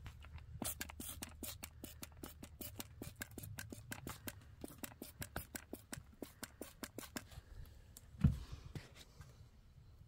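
A rapid, irregular run of small sharp clicks and ticks, then a single louder thump about eight seconds in.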